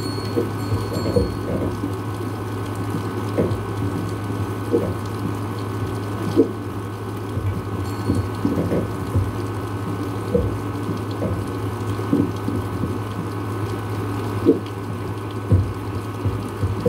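Steady rain with irregular drips tapping on a surface close by, over a constant low hum.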